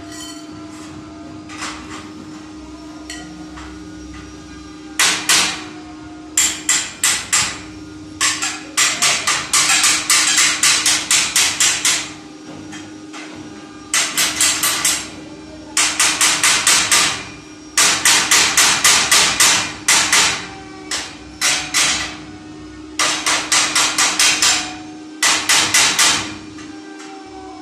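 A hammer striking steel square tubing of a gate frame, in quick runs of sharp, ringing metal strikes, several a second, with short pauses between runs, starting about five seconds in. A steady low hum runs underneath.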